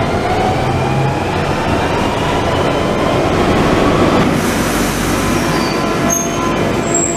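London Underground train pulling away, heard from inside the carriage: a loud rumble with the traction motors whining in several tones that rise steadily in pitch. About four seconds in it switches to a platform beside a moving tube train, a noisy rumble with a couple of short high wheel squeals near the end.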